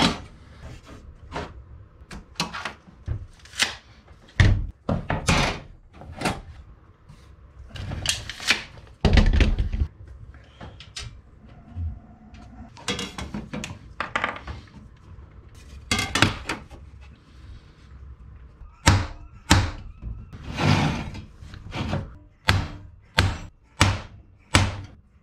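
Irregular knocks and taps of a brass instrument panel and a plastic layout square being shifted and set down on a wooden workbench while hole positions are marked out. Near the end the taps come in a quicker, fairly even run.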